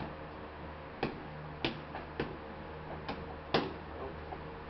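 Padded boxing gloves smacking against a trainer's bare hands and arms during close pad-less drilling: about five sharp slaps at uneven intervals, the loudest a little past halfway. A steady low hum runs underneath.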